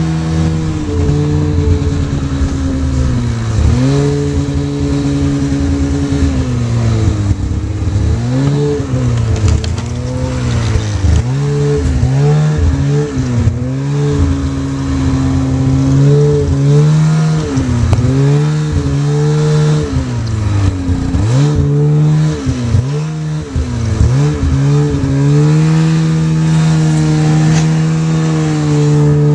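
Polaris snowmobile engine running under way, its pitch falling and climbing again many times as the throttle is let off and opened. It is held steady in longer stretches and dips quickly several times in a row toward the later part.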